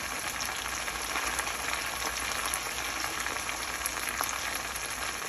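Spice-coated whole chicken frying in oil in a stainless steel pan: a steady sizzle with scattered small pops and crackles.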